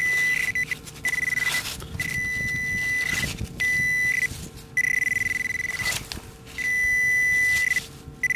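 Metal detecting pinpointer probe sounding a high steady beep in repeated stretches of about half a second to a second, with short gaps, as it is pushed and scraped through wet gravel and sand. The tone means there is metal close to the probe's tip.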